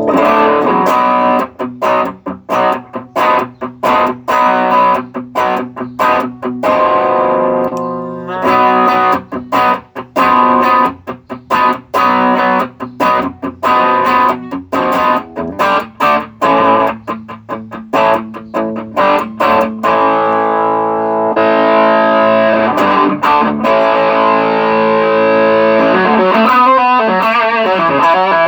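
Electric guitar played through a TC Electronic Nova Drive overdrive pedal, with the pedal working again after its gain and volume pots were replaced. Short, choppy driven chords give way about twenty seconds in to longer ringing chords.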